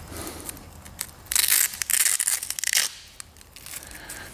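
Leather seat-bolster guard being pulled and pressed onto a carbon-fibre bucket seat by hand: a loud ripping crackle for about a second and a half, starting just over a second in, with fainter rubbing and handling noise on either side.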